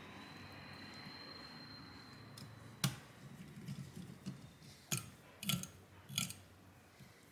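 Clicks and light knocks of a screwdriver and plastic fan parts being handled while fans are fitted to a graphics card's cooler, with four sharp clicks between about three and six seconds in. A faint high whine fades out about two seconds in.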